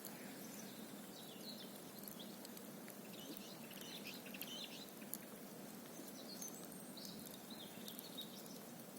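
Wood campfire burning, faint, with scattered sharp crackles and pops over a steady hiss, and short bursts of high chirping in a few patches.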